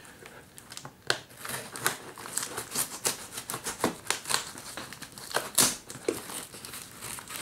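Packing tape and paper wrapping being picked at and torn off a cardboard parcel: irregular crackling and ripping, with the sharpest rips about a second in and again about five and a half seconds in.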